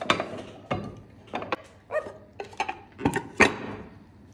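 A glass dish knocking and clinking against a serving tray, about half a dozen short knocks and clinks, some with a brief ring, as it is turned over and lifted off a set meat aspic.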